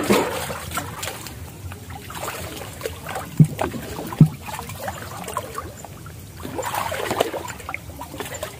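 Shallow water sloshing and splashing as people wade through it, with two dull knocks a little under a second apart around the middle.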